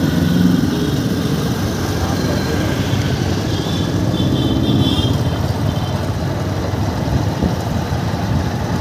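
Steady running of a motor scooter or motorcycle engine on the move, mixed with road and wind noise.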